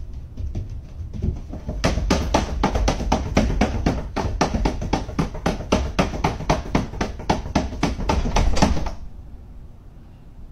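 Rapid banging against a closed interior door from the other side, about five knocks a second for some seven seconds, starting about two seconds in and stopping abruptly near the end.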